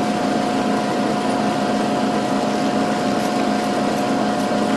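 Milling machine spindle running steadily with its power feed engaged, driving a drill bit down into a steel part: an even mechanical hum with a constant tone. A few faint ticks come near the end.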